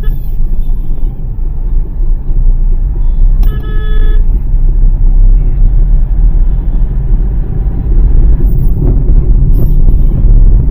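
Inside the cabin of a moving Hyundai Xcent diesel: steady low rumble of engine and road noise. A car horn toots once, briefly, about three and a half seconds in. The mechanic hears no injector knock in this car, only other extra noises.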